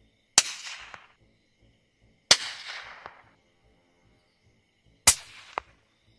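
Three rifle shots, spaced about two to three seconds apart. Each shot is followed about half a second later by a second, shorter crack.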